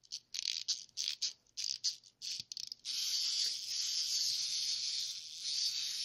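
Small plastic wind-up dancing robot toy: a run of ratcheting clicks as it is wound for about three seconds, then its clockwork spring motor whirring steadily as it runs down.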